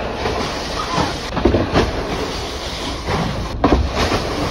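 Load of ice pouring from a tipped bin and sliding down a chute: a steady rushing rattle with several heavy thumps as chunks drop.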